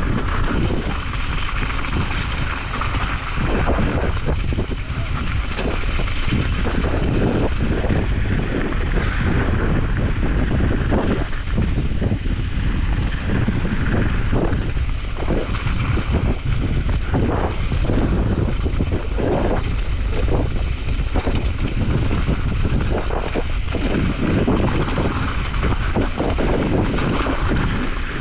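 Wind rushing over the camera microphone on a fast mountain-bike descent, with the Specialized Kenevo SL e-mountain bike's tyres crunching over loose gravel and rock and the bike rattling over repeated bumps.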